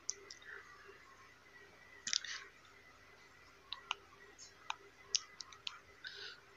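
Scattered light clicks and taps, about a dozen, with a denser cluster about two seconds in, from wires and small tools being handled on a workbench. The fan motor is not running.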